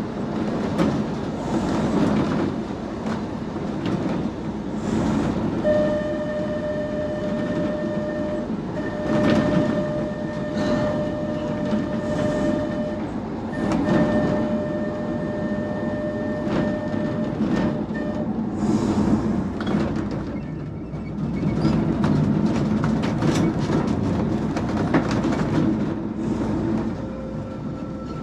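Manx Electric Railway electric tramcar running along the track, heard from its open front platform: a steady rumble of wheels with clicks over rail joints. A high steady tone comes and goes three times through the middle, and a fainter one starts near the end.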